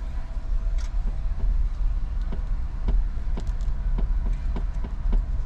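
Low rumble inside an electric car rolling slowly forward, with scattered light clicks and ticks.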